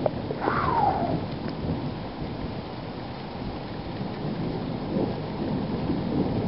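Thunderstorm: steady rain falling, with thunder rumbling low, heaviest about a second in. A short whistle falls in pitch at the same moment.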